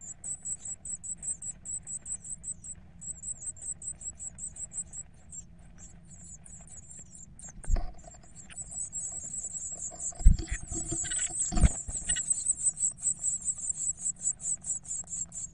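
A brood of blue tit nestlings begging in the nest box: high, thin calls pulsing about four times a second, which swell into a louder, denser chorus about halfway through. A few dull knocks come from the adults moving about in the box as they feed the chicks.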